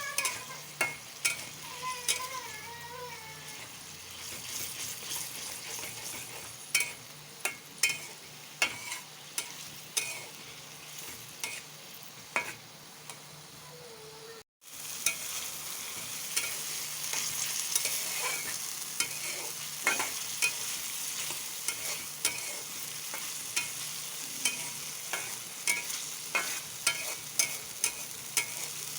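Food for dim bhuna frying in oil in a pan, sizzling steadily as it is stirred, with frequent sharp clicks of the spoon knocking and scraping the pan. The sound cuts out for a moment about halfway through.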